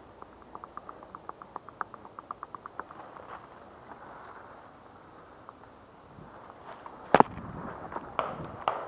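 Paintball markers firing: a fast string of fainter shots, about seven a second, for the first three seconds, then one loud sharp shot about seven seconds in and a few more scattered shots near the end.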